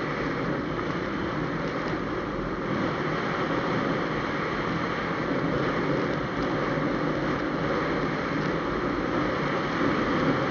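Steady rush of wind and road noise from a motorcycle riding at speed on an open road.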